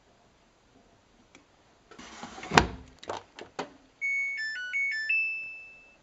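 A sharp plastic click, likely the washing machine's detergent drawer being shut, followed by a few lighter clicks. Then the Samsung washing machine's power-on jingle plays: a quick melody of electronic beeps stepping up and down, ending on one long held tone that fades away.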